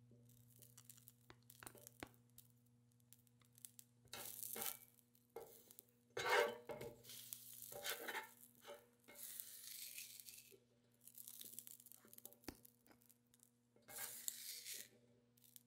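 Spatula scraping and pushing rice and corn kernels across a griddle plate in short scrapes with pauses, the loudest about six seconds in. A low steady hum runs underneath.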